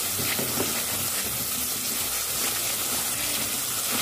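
Thick onion-tomato masala paste frying in oil in a black wok (kadai), sizzling steadily, with a flat spatula stirring through it in the first second. The masala is fully fried after about ten minutes, oil separating at its edges.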